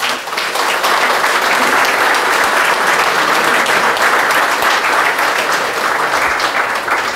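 A standing crowd applauding, many hands clapping together; it builds up over the first half second, then holds steady.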